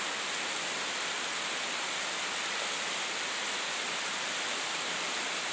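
Heavy sleet coming down, a steady even hiss of ice pellets falling.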